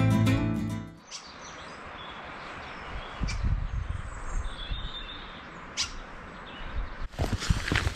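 Acoustic guitar music ending about a second in, then outdoor ambience: a low rumble with a few faint bird chirps. Near the end, footsteps start.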